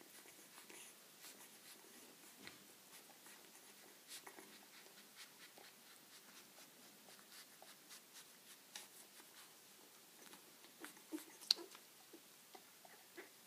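Faint, irregular wet clicks and smacks of a golden retriever mother licking her newborn pup, with a louder cluster of clicks near the end.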